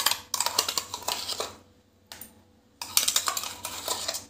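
A steel spoon scraping and clinking inside a steel mixer-grinder jar as mustard paste is scooped out, in two short bursts of rapid metallic scraping.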